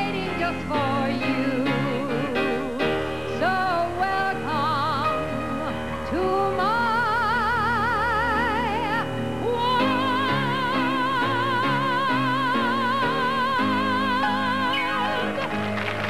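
A woman sings a ballad into a microphone with band accompaniment, her voice heavy with vibrato. About ten seconds in she holds one long final note, and applause starts up just as it ends.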